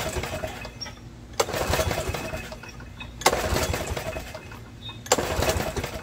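Recoil starter of a Snapper riding mower's 11 hp Briggs & Stratton engine pulled three times, each pull cranking the engine in a quick rapid chuffing that dies away without the engine firing. The choke is on and the engine is flooded with fuel, so it does not catch.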